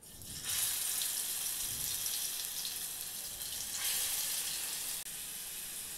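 Coriander-garlic paste sizzling as it is spooned into hot oil in a pan: a steady hiss that starts as the paste goes in, grows louder about four seconds in, and eases a little about a second later.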